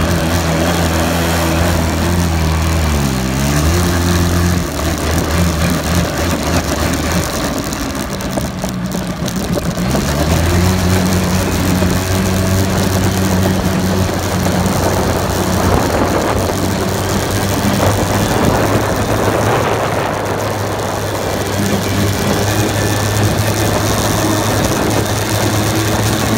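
A four-wheeler (ATV) engine running while the machine is ridden, its note dipping briefly about three seconds in, rougher and less even for a few seconds after, then settling into a steady drone. Wind rushes across the microphone throughout.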